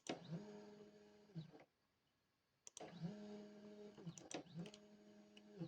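CNC axis motor whining at a steady pitch in three short jog moves, each begun and ended with a click: the Z axis being jogged toward its triggered limit switch, which the controller does not stop.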